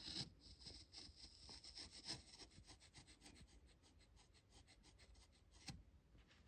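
Faint scraping of a steel blade shaving thin curls off a small wooden muntin strip, a quick run of light ticks with a few louder knocks, the sharpest near the start, about two seconds in and near the end.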